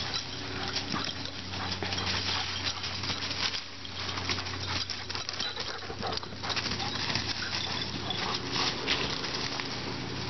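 Dry leaf litter crackling and rustling under running dogs' paws and footsteps, a dense irregular patter, over a steady low hum.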